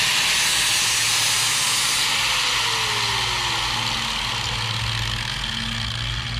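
Angle grinder running steadily and grinding the cutting edge of a steel lawn mower blade: a steady hiss of the abrasive wheel on steel over the motor's hum. This is a first test pass to check that the grind sits in the right spot on the edge.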